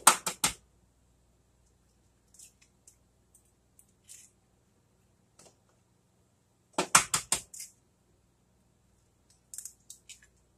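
Egg being cracked against the rim of a mixing bowl: quick runs of sharp taps at the start and again about seven seconds in, with faint ticks of shell between and near the end.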